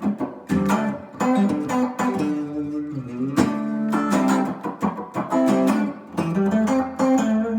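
Gretsch semi-hollowbody electric guitar on its middle pickup (DiMarzio PAF-style humbucker), played clean through a 5F4 amp with a little digital reverb. It plays a continuous run of strummed and picked chords.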